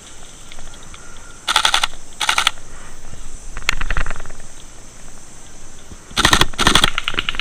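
Airsoft rifles firing on full auto: several short bursts of rapid clicking shots, two about a second and a half in and two more near the end, with fainter bursts between.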